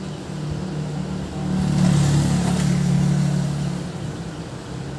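Traffic on an adjacent main road: a steady low engine hum, with a passing vehicle swelling to its loudest about two seconds in and fading away by about four seconds.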